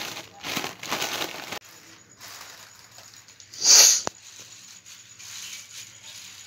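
Foil party balloons crinkling as they are pressed and folded flat to push the air out. A loud rush of noise lasting about half a second comes about three and a half seconds in, followed by a sharp click.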